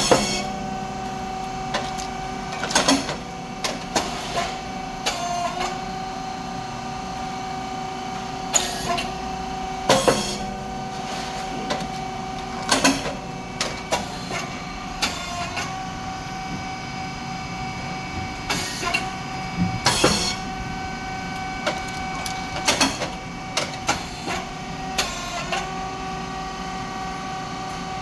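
SYP5804T rice cake popping machine working through its cycles over the steady hum of its motor and hydraulic pump. A sharp bang comes about every ten seconds, three times in all, as the heated moulds open on a batch of rice chips. Between the bangs come lighter clacks and knocks from the mould, cylinder and feeding plate.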